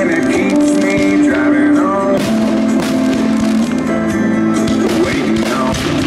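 Music playing: a song with a singing voice and guitar.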